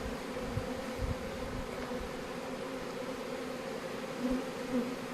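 A honeybee swarm buzzing steadily as the mass of bees settles and makes its way into the hive, an even hum with no breaks.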